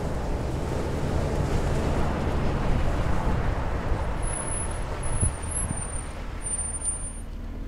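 2005 Jeep Wrangler Rubicon Unlimited rolling over loose volcanic cinders: a steady rumble of the tyres on the gravel with the engine running under it.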